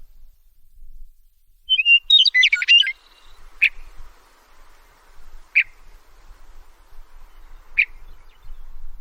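A meadowlark singing: one quick phrase of whistled, warbling notes about two seconds in. It is followed by three single sharp notes about two seconds apart.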